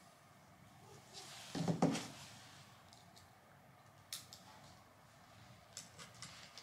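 Faint handling of small hardware on a workbench. A brief rustle and knock comes about one and a half seconds in, then a few light clicks near the end as hands work a screw into the chassis rails.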